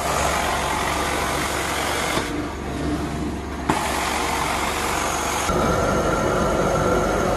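Carpet-cleaning extraction wand under steady machine suction, working the carpet in strokes: the hiss thins briefly in the middle, with a sharp click about four seconds in as it comes back, and turns heavier and lower with a faint whistle from about five and a half seconds on.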